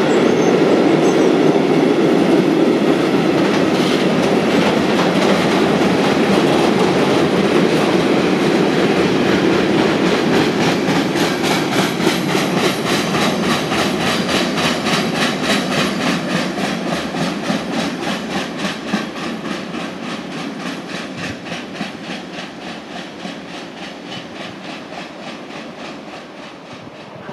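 A train running along the station tracks and moving away. The loud rumble slowly fades, and from about ten seconds in the wheels clack in a steady rhythm over the rail joints.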